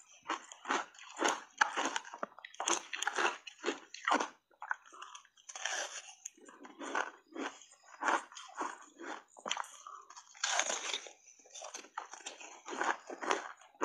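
A person biting and chewing refrozen shaved ice: a rapid, irregular run of crunches, broken by a few short pauses.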